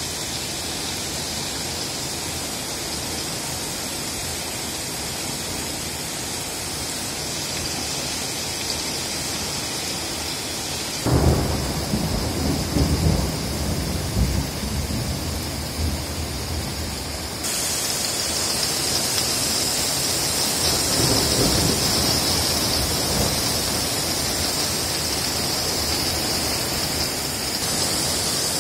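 Heavy rain pouring steadily in a thunderstorm. About eleven seconds in, thunder rumbles for several seconds, the loudest sound, and a fainter rumble follows later while the hiss of the rain grows louder.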